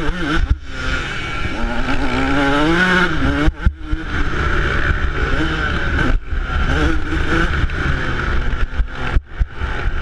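2008 Yamaha YZ125's single-cylinder two-stroke engine revving up and down under the rider's throttle, its pitch rising and falling, with four short drops in the engine sound about every three seconds.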